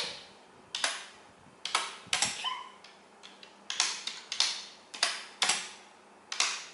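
Computer keyboard typing: irregular key clicks, a few a second in uneven clusters.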